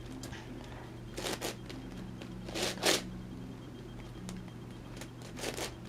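Plastic layers of an MFJS MeiLong 11x11x11 Rubik's cube being turned by hand: three short clacking turns, a second or more apart, over a steady low hum.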